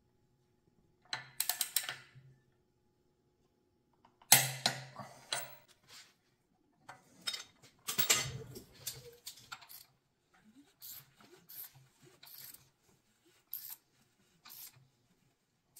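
Hand ratchet wrenches clicking in short bursts: first a long ratchet on the camshaft sprocket nut of a rebuilt Porsche 911SC flat-six, then a ratchet on the crankshaft pulley nut turning the engine over by hand. The loudest clatter comes about four seconds in, and the later bursts are shorter and more evenly spaced.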